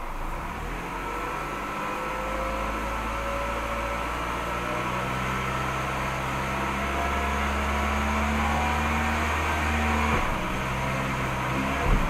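Peugeot 308's engine heard from inside the cabin, revving steadily higher under acceleration, then the note drops about ten seconds in as the AL4 automatic gearbox changes up. A single sharp thump follows near the end: the harsh shift shock from a faulty valve body (hydraulic block).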